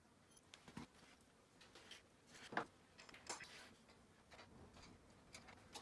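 Near silence broken by a few faint, scattered clicks and taps, the clearest about two and a half seconds in.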